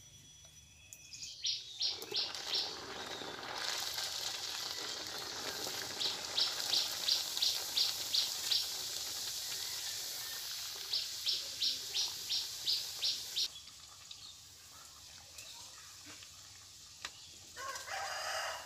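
Nimki (flaky fried dough pieces) deep-frying in hot oil in a karahi: a steady sizzling hiss that starts about a second and a half in and stops a few seconds before the end. Over it a bird chirps in three quick runs of short, high notes, several a second.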